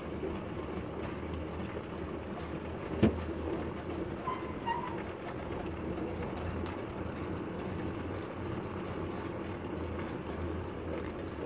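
Philippine tricycle's motorcycle engine running steadily on the move, with one sharp knock about three seconds in, like the sidecar jolting over a bump.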